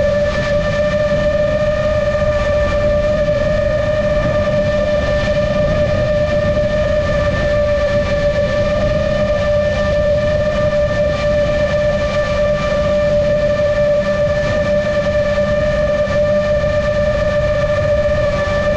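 Motors and propellers of a GepRC MOZ7 seven-inch long-range FPV quadcopter whining at a steady cruise throttle, one unchanging pitch, with wind rumble on the onboard camera's microphone.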